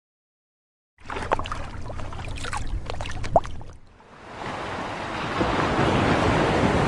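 Ocean surf: waves washing in with scattered splashy clicks, starting about a second in. The sound drops briefly near four seconds, then a fuller swell of rushing water builds up.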